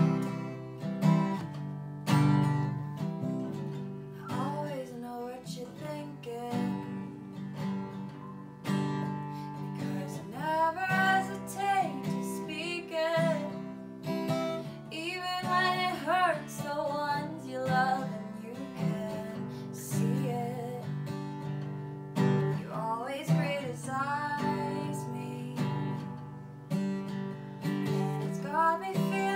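A woman singing and strumming chords on an acoustic guitar. Her voice comes in a few seconds in and sings in phrases over the steady strumming.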